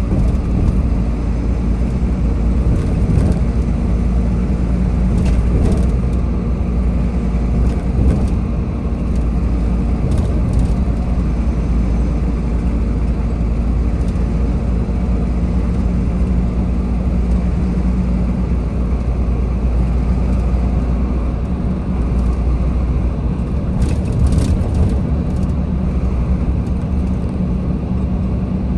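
Road traffic: a steady low hum of motor vehicle engines in heavy, slow traffic, with a few brief clicks.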